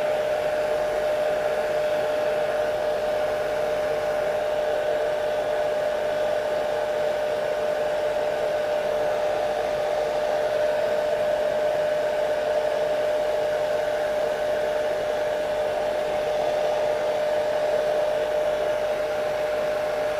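Hair dryer running steadily: a constant rush of air with a steady high hum from its motor and fan.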